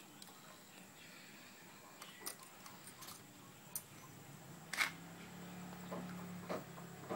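Faint clicks and knocks of plastic Lego Technic parts as an EV3 robot is handled and its fold-out legs are set so it stands, with the sharpest click about five seconds in. A faint low hum follows for about two seconds.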